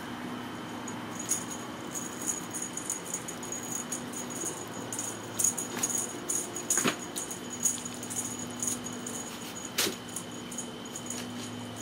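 Kittens at play with a feather wand toy, pouncing and batting on carpet: scattered light clicks and jingling, with a few sharper knocks about five and a half, seven and ten seconds in.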